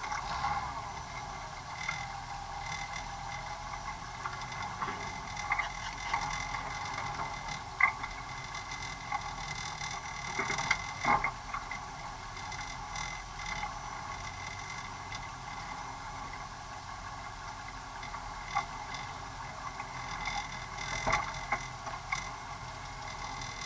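Off-road vehicle crawling over a rough dirt trail, its engine running slow and steady under a faint whine, with occasional sharp knocks and rattles from the body and roll cage, most clearly about 8 and 11 seconds in and again near the end.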